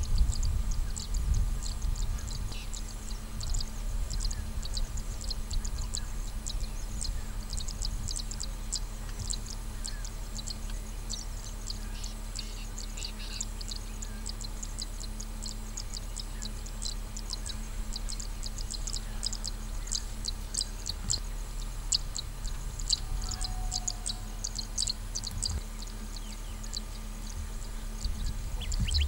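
Outdoor grassland ambience: a dense, continuous chorus of short, high-pitched chirps over a steady low rumble.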